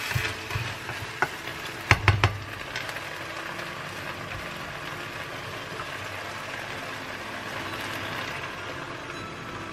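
Risotto rice and chorizo sizzling in a nonstick frying pan as the liquid cooks off, the cue to add more stock. A plastic spatula scrapes and taps the pan a few times in the first couple of seconds, and near the end a cup of hot stock is poured in.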